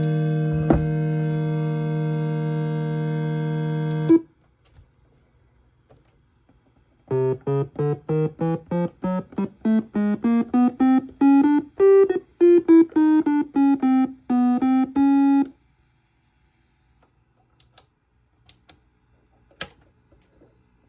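Omnichord OM-84 electronic instrument sounding: a held chord that cuts off suddenly after about four seconds, then after a pause a run of short single notes stepping up in pitch and back down.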